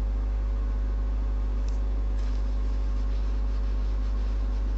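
Steady low electrical hum with faint background hiss, unchanging throughout.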